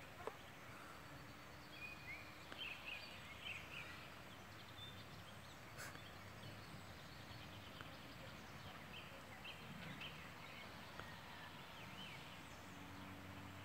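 Faint outdoor background noise with scattered short bird chirps, in two loose clusters.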